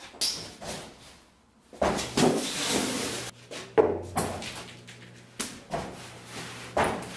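A long reclaimed wormwood plank, bored full of clam holes, being lifted and handled: several sharp wooden knocks and thumps, with a longer stretch of scraping as the board slides against the other plank and the wall.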